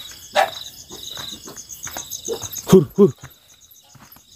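Crickets and other night insects chirping steadily in an even, repeating pulse, with footsteps on the ground. A sharp knock comes about half a second in, and a loud, short two-part sound comes about three seconds in.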